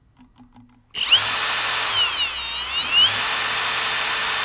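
Kobalt 24V cordless drill starting up about a second in and running at high speed with a steady whine, its pitch dipping and coming back up once midway, as it drills out a carburetor main jet with a number 62 bit. A few faint clicks come before the drill starts.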